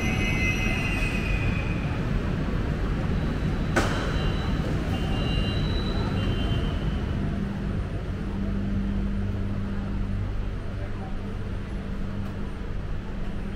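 LRT Jabodebek train at the platform: a steady low hum and rumble from the train car. There is one sharp click about four seconds in, followed by a few short high tones.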